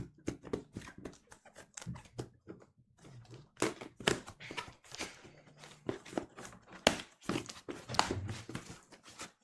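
Cardboard shipping box being opened and handled by hand: a string of irregular crackles, scrapes and knocks of cardboard and packing tape.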